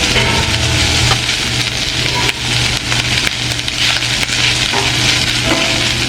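Chicken fried rice sizzling steadily on a Blackstone flat-top griddle as it is stirred and tossed, with frequent short clicks and scrapes from the spatula on the hot steel.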